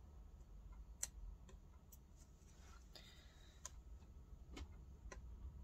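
A few faint, irregular clicks of a pointed weeding hook picking small waste pieces of heat transfer vinyl off its carrier on a cutting mat, over near silence.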